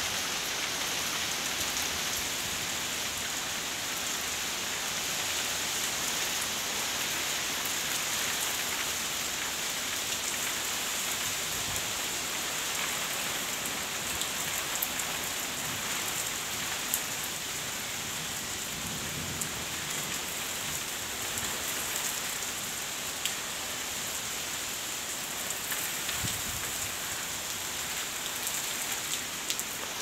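Heavy rain pouring down steadily: a dense, even hiss with scattered sharper ticks of individual drops striking.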